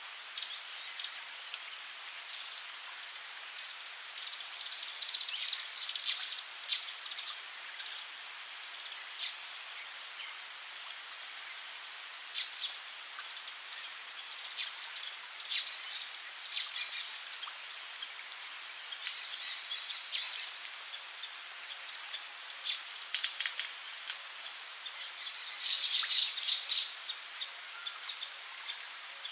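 Rainforest ambience: a steady, high insect chorus with short bird chirps scattered through it, the loudest about five seconds in and a quick cluster near the end.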